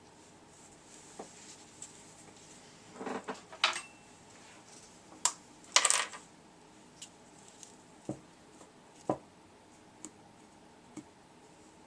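Small metal parts of a Mikuni fuel pump clinking and clattering as they are handled and set down during disassembly, with a short clatter about three seconds in, the loudest clinks around five to six seconds, then a few scattered light clicks.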